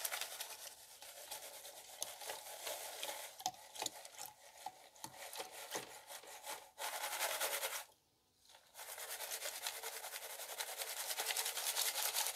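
Paydirt gravel and water rubbing and sloshing in a plastic gold pan being shaken fast, with a short complete break about eight seconds in. The shaking settles the heavy material, gold included, to the bottom of the pan.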